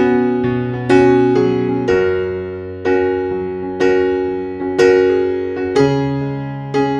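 Background music: slow piano chords, struck about once a second and left to ring out.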